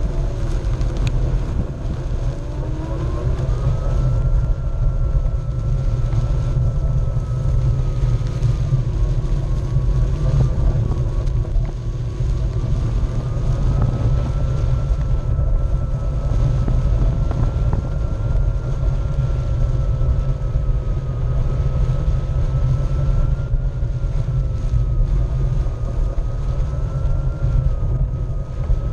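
Onewheel electric skateboard's hub motor whining steadily while riding, its pitch rising about two to four seconds in as it speeds up. Under the whine is a heavy low rumble of the tyre rolling over turf.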